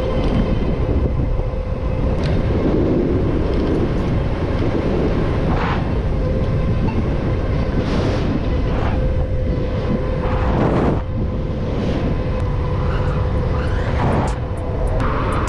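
Zooz 750 electric bike ridden at full throttle: a steady electric-motor whine over loud wind and road rumble, with a few brief louder rushes.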